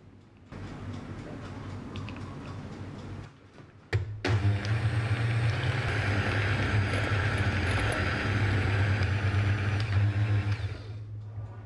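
Electric hand mixer beating egg whites to a froth in a glass bowl, its motor giving a steady whirring hum. It runs quieter at first, dips, a click comes about four seconds in, then it runs louder until it drops away near the end.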